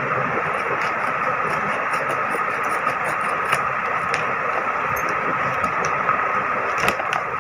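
A steady machine-like hum with a faint whine runs throughout, over a few soft clicks and crinkles as a paper seed packet is cut open with scissors and opened.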